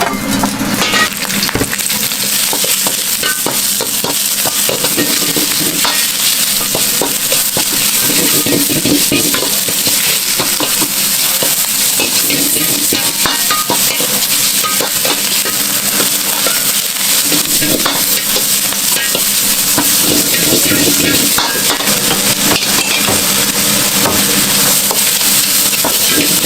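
Yakisoba frying on a hot griddle, a steady loud sizzle with many short clicks and scrapes as it is stirred and turned.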